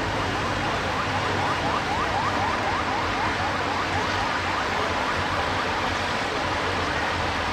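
Approaching passenger train's steady running rumble and noise. Over it, for the first five seconds or so, there is a rapid series of short rising chirps, about four a second, like a siren's yelp.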